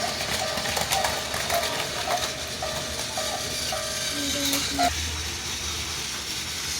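Toy level-crossing bell ringing in an even repeat, about two strikes a second, stopping about five seconds in. Plastic toy trains rattle and click on their track beneath it.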